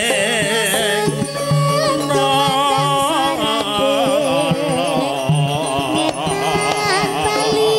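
Woman singing a Javanese campursari song with a wavering, ornamented melody over live band accompaniment with recurring low drum strokes.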